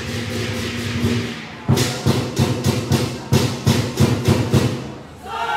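Lion dance percussion: a big Chinese lion drum with clashing cymbals. About a second and a half in, it settles into heavy beats with cymbal crashes, about three a second, then eases off near the end.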